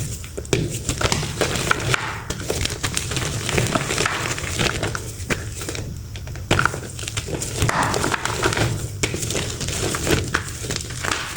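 Powdery pressed chalk reforms being crushed and crumbled, an uneven run of dry crunches and crackles.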